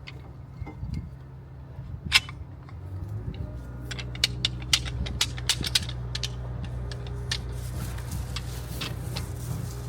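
Sharp metallic clicks and knocks of brake pads and caliper parts being handled and fitted, with a single loud click about two seconds in and a quick run of clicks between four and six seconds in, over a steady low hum that grows about three seconds in.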